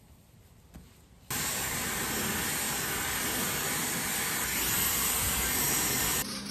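Handheld hair dryer blowing on wet hair: a steady, loud airflow hiss that switches on suddenly about a second in and cuts off just before the end.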